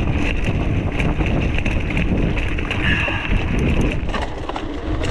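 Wind buffeting the action camera's microphone as a mountain bike is ridden, a steady low rumble, with scattered clicks and rattles from the bike over rough ground.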